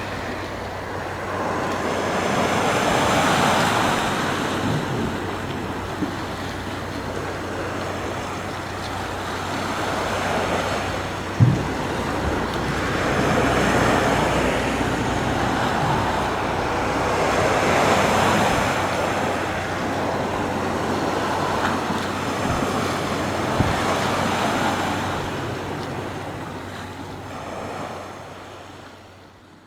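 Sea waves breaking and washing up the shore, swelling and ebbing every few seconds, with a single short thump about eleven seconds in; the sound fades out near the end.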